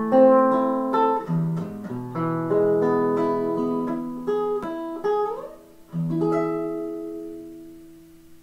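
Nylon-string classical guitar played solo with the fingers, a hymn melody over chords. A slide up the neck comes about five seconds in, then a final chord that rings and slowly fades away.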